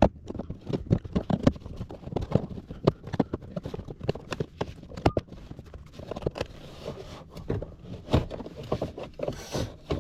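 A pry tool levering the plastic window-switch panel out of a car door trim panel: a rapid, irregular run of clicks, knocks and scrapes of plastic.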